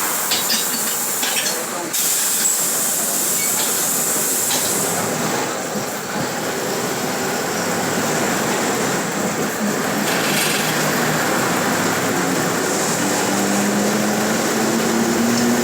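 Mercedes-Benz OF-1721 BlueTec 5 city bus under way, with steady running noise and rattling clicks from the body in the first few seconds. From about two-thirds of the way in, a whine rises slowly in pitch as the bus gathers speed: the growling differential.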